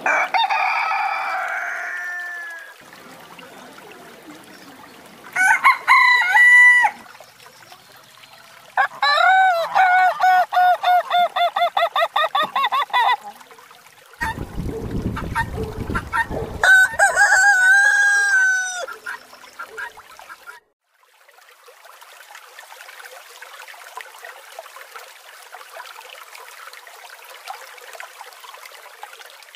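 Roosters crowing one after another: a crow at the start, another about five seconds in, a long run of rapid pulsed calls at about five a second from about nine to thirteen seconds, and a last crow about seventeen seconds in, just after a low rumble. The last third holds only a faint steady hiss.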